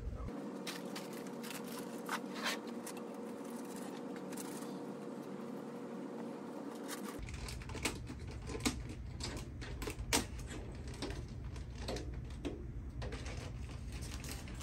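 Scattered light clicks and clinks of tools and small metal engine parts being handled and set down, at an irregular pace.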